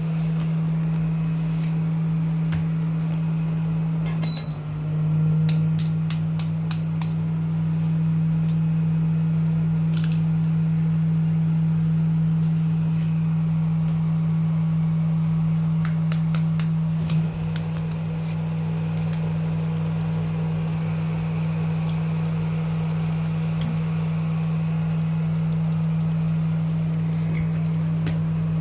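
A steady low hum that does not change in pitch or level, with scattered faint clicks and pops.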